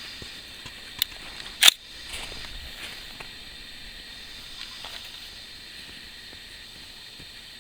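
Two sharp clicks about two-thirds of a second apart, the second much louder, over a steady high hiss.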